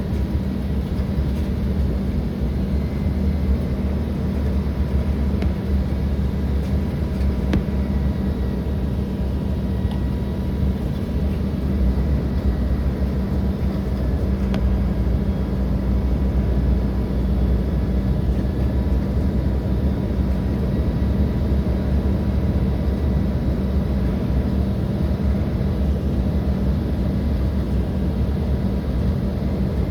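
Embraer 175 regional jet's steady drone of engines and airflow, deep and unchanging, with a thin steady whine above it.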